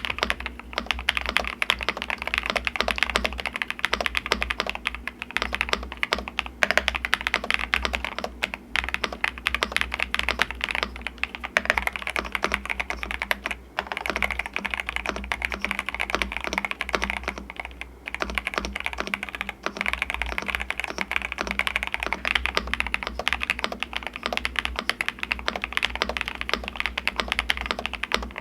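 Fast continuous typing on an Epomaker plastic pre-built mechanical keyboard, a dense stream of keystrokes with a few brief pauses. The keyboard has linear switches and factory-lubed plate-mounted stabilizers, and the reviewer finds it sounds pretty decent rather than deep.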